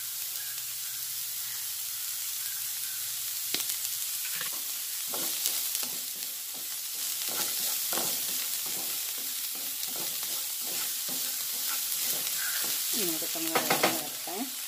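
Chopped onions sautéing in a little coconut oil in a nonstick frying pan, a steady sizzle. From about three and a half seconds in, a wooden spatula scrapes and stirs them in irregular strokes, busiest near the end.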